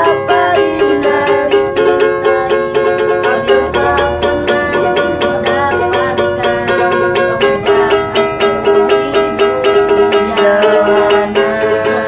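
Ukulele strummed in a quick, steady rhythm, with a man and a woman singing along.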